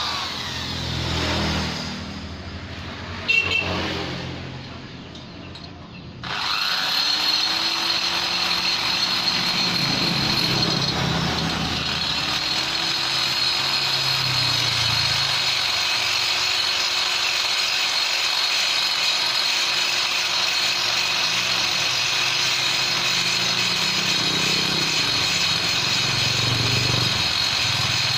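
A high-speed rotary grinder fitted with a carbide burr (tuner bit) starts about six seconds in and runs with a steady high whine, used to shape the ports of a Vespa engine. Before it there is a quieter stretch of workshop noise with one sharp knock.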